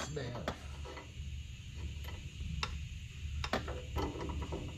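Scattered, irregular metallic clicks and taps of bolts, nuts and hand tools being handled during semi-truck driveshaft carrier bearing removal, over a steady low hum.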